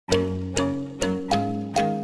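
Intro music: a plucked-string or mallet melody, one note about every half second, each note fading before the next.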